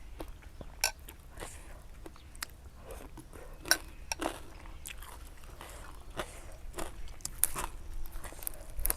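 Close-up biting and chewing of crispy pork cracklings (khaep mu), with irregular sharp crunches every fraction of a second.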